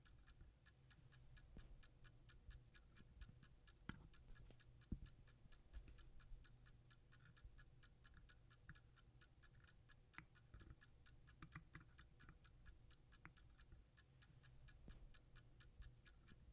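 Pocket watch movement ticking quickly and evenly, about five ticks a second, most likely the restored fusee watch running on the bench. A few faint taps and clicks of small tools being handled stand out over the ticking.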